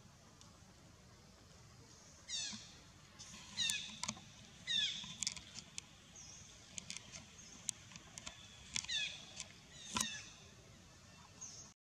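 Faint, high-pitched animal calls: short chirps that sweep steeply downward, repeated several times in small groups, with scattered sharp clicks between them.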